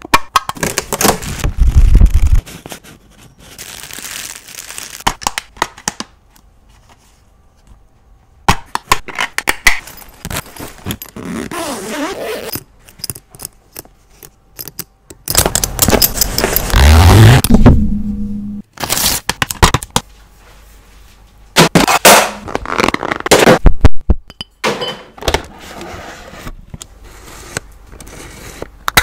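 Close-miked hand and handling noises at a microphone: irregular scraping, crackling and tapping in bursts, with sharp clicks and short pauses between them. There is a louder, heavier stretch past the middle.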